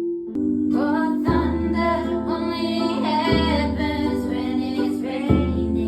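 A woman singing a slow song over plucked guitar, with held low tones underneath and a deep bass note about every two seconds.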